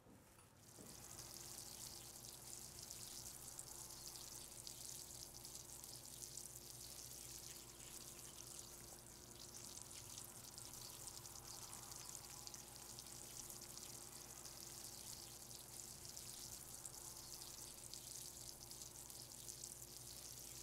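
Faint, steady high hiss of outdoor background with a low steady hum beneath, starting about a second in.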